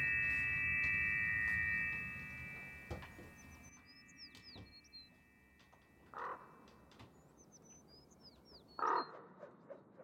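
A steady ringing tone of several pitches that fades out over the first few seconds, then faint bird calls: clusters of small high chirps and two short caw-like calls, about six and nine seconds in.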